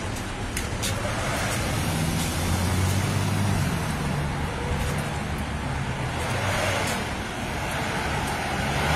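Street traffic: car engines running close by over a steady wash of road noise, with the engine hum growing louder for a few seconds near the middle.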